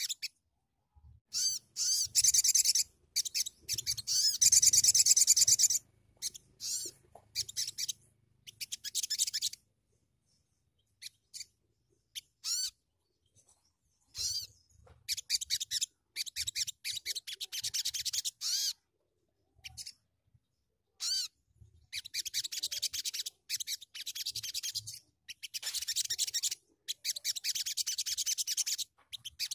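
Sogon (sogok ontong) songbird singing a rapid, high-pitched trilling chatter in bursts of one to a few seconds separated by pauses, the loudest stretch a few seconds in.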